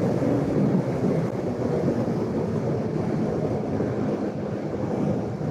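Bajaj Pulsar RS200's single-cylinder engine running at a steady cruise, heard with wind buffeting the rider's collar microphone.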